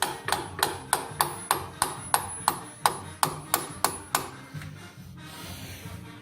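Hammer blows on steel parts of a lathe headstock being reassembled: about fourteen sharp, ringing strikes at roughly three a second, stopping a little after four seconds in. Background music plays underneath.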